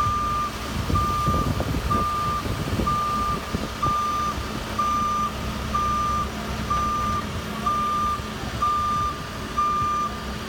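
Reversing alarm of a JCB telescopic handler beeping in one steady tone about once a second, over the machine's engine running.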